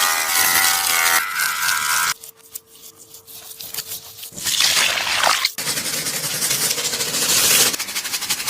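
A sticky Taba squishy being squeezed and pulled apart, giving sticky crackling and scraping noise in bursts, with a brief squeak about five seconds in.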